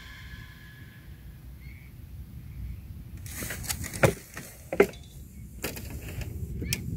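Background music fades out, then a run of sharp clicks and knocks from fishing gear being handled, the two loudest about four and five seconds in, as the float sinks under a bite.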